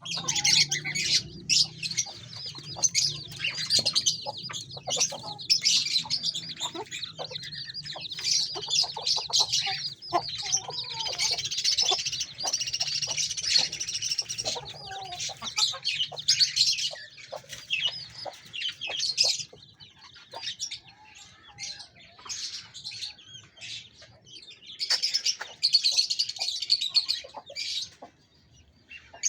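Dense, high-pitched chirping of many small birds, with chicken clucking mixed in. The chirping thins out for a few seconds past the middle, then picks up again. A low steady hum runs underneath through the first half.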